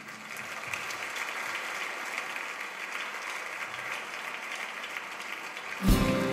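Audience applauding steadily. Near the end the band comes in suddenly with a loud opening chord.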